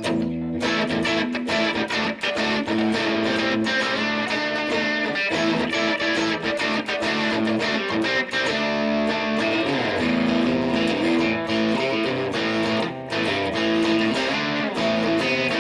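1958 Gibson Les Paul Special electric guitar played on its bridge P-90 pickup through a modelled Vox AC30 amp with light overdrive, mixing strummed chords and picked notes.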